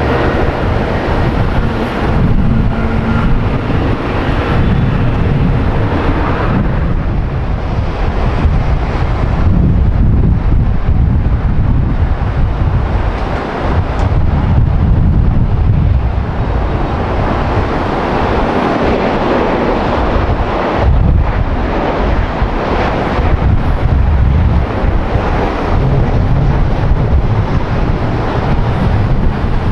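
Steady, loud rumble of a jet airliner's engines, with wind buffeting the microphone.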